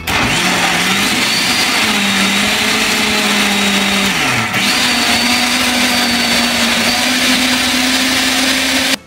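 Electric blender running at full speed, pureeing boiled butternut squash, apple and pear. The motor pitch dips briefly about four seconds in, then runs on a little higher, and the motor stops abruptly near the end.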